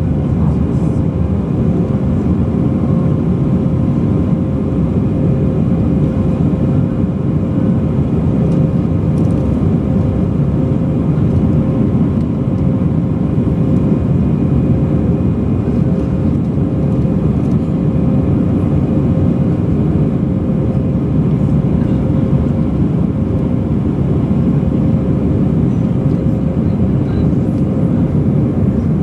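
Airbus A319-100 cabin noise during climb-out after takeoff: a steady, loud roar of the jet engines and rushing air heard from a rear window seat behind the wing, with a steady hum tone running through it.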